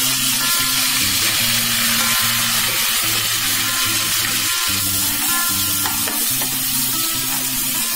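Sliced onion, chopped tomato and curry leaves sizzling steadily in hot oil in a pan while being stirred with a spoon.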